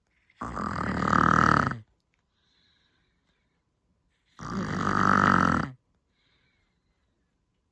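A woman snoring loudly in her sleep: two long snores, each about a second and a half, roughly four seconds apart, with a faint breath between them.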